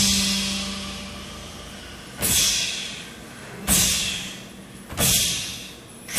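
Steam-train hiss effect: loud bursts of hissing that start suddenly and die away, three times about a second and a half apart.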